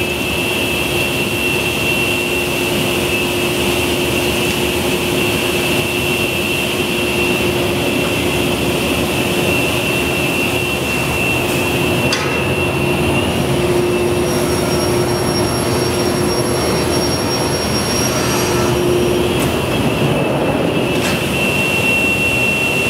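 Steady whir of running woodworking machinery, a high whine over a lower hum. About thirteen seconds in the whine drops out. Thinner, higher whines take over for a few seconds, then the first whine returns near the end.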